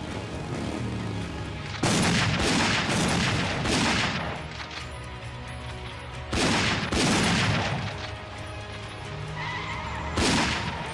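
Dramatic film score under bursts of gunfire. A rapid volley of shots comes about two seconds in and lasts some two seconds, a second volley follows around the middle, and a short burst comes near the end.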